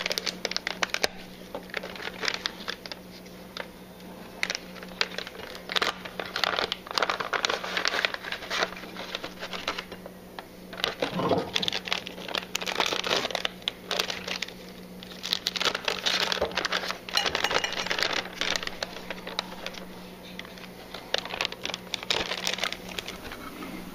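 Foil-lined plastic snack bags of dried fruit being handled and crinkled as dried mango is tipped out onto a plate: irregular crinkling and rustling, over a steady low hum.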